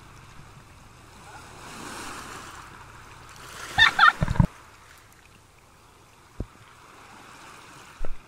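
A woman's short burst of laughter about halfway through, over a steady rushing background that swells and fades. A single low knock follows a couple of seconds later.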